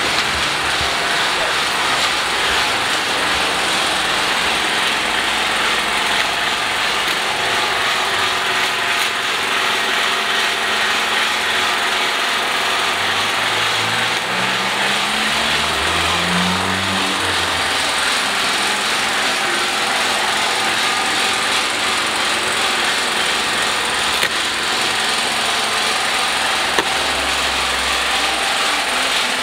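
A running motor or engine makes a steady mechanical noise. About halfway through, a deeper engine note rises twice.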